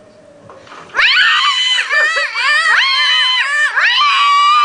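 Girls' voices screeching on purpose: a loud, high-pitched, wavering shriek that starts about a second in and keeps going, made as a deliberately annoying sound.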